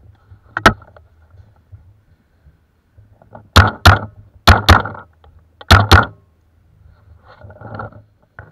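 Paintball fire: sharp cracks, a single shot and then three quick pairs of shots about a second apart.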